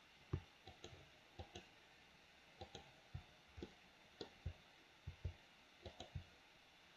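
Computer mouse buttons and keyboard keys clicking: a string of short, sharp clicks, many coming in quick pairs, over a faint hiss.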